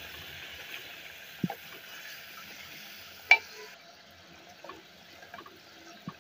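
Beef and masala frying in ghee in a clay handi, sizzling steadily while a spatula stirs and scrapes. A sharp knock of the spatula against the clay pot about three seconds in is the loudest sound. The sizzle drops off soon after, leaving quieter scraping and light taps.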